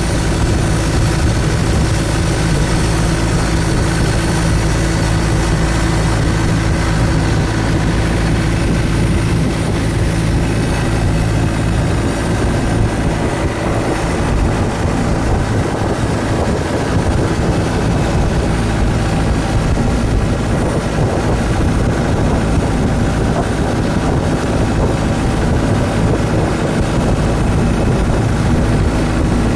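Thai longtail boat's engine running steadily under way: a loud, even drone that holds the same pitch throughout.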